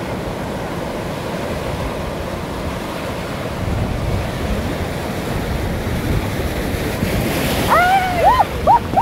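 Ocean waves washing in at high tide: a steady rush of surf that swells a little about four seconds in, with some wind on the microphone. Near the end, a run of short, high calls that rise and fall breaks in over the surf.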